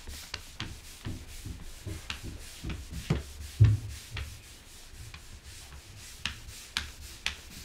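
Flat sheet floor mop sliding back and forth across a wooden floor, a series of soft rubbing swishes with light clicks. There is a louder thump about three and a half seconds in.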